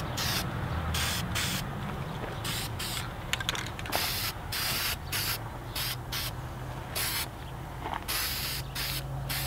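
Aerosol spray-paint can spraying in short repeated bursts, about one or two a second, with brief pauses between them as the can is swept back and forth over a part.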